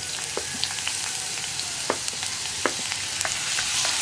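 Chopped garlic sizzling in hot coconut oil in a cast-iron kadai, a steady hiss with scattered small pops, stirred with a wooden spatula.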